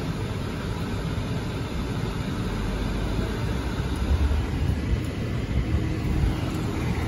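Car engine and road rumble heard from inside the cabin, getting stronger about four seconds in as the car pulls away.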